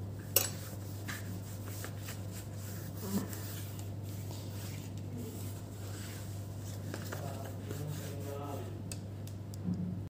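Cloth rubbing across a laptop screen and its plastic bezel, with small handling clicks and knocks: a sharp click just after the start and a knock about three seconds in. A steady low hum runs underneath.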